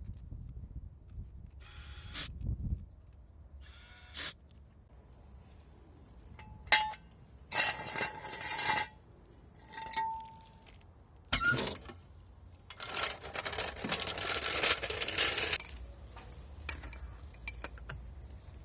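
Hand tools and metal parts clinking and scraping on a car's front suspension, with a few sharp knocks and two longer stretches of rasping mechanical noise, one about halfway through and one after it.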